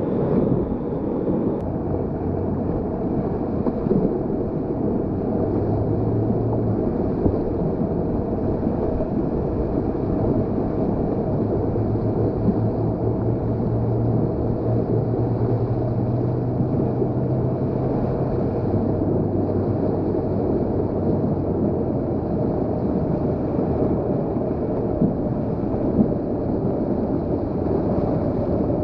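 Steady rushing of whitewater in a river rapid, an even continuous roar with no break.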